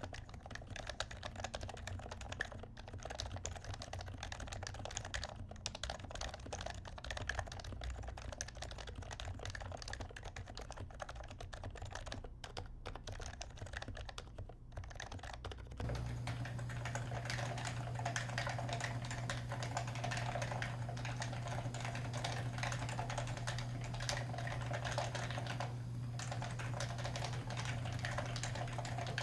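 Steady, fast typing on an HHKB Professional 2 keyboard with silenced Topre-style rubber dome switches (Deskey 42g domes with silencing rings), giving soft, muted keystrokes. About two-thirds of the way through, the sound turns louder and gains a steady low hum as the recording changes to the camera's built-in microphone.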